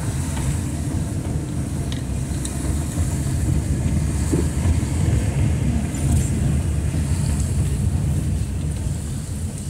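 Steady low rumble of a car driving slowly on a wet street, heard from inside the cabin, mixed with the drone of standby power generators running along the street during a power outage.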